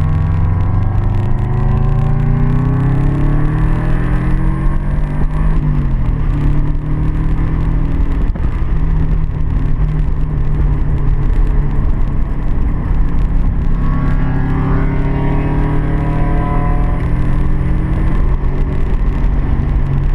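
Car engine running hard on a race track, its note rising as it accelerates, dropping around five or six seconds in, then climbing again near the two-thirds mark.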